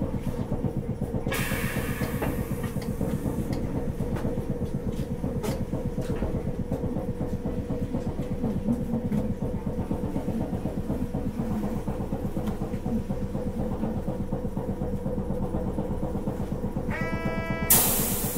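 Interior sound of a Sapporo City Tram M100-type streetcar (car M101): a steady electrical hum with a burst of hiss about a second in. Near the end comes a short buzzer-like tone, then another loud burst of hiss.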